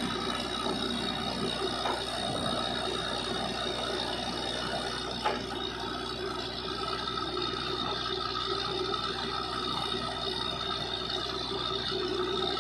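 Truck-mounted DTH borewell drilling rig running steadily, a continuous machine drone with a high whine. A single sharp click about five seconds in.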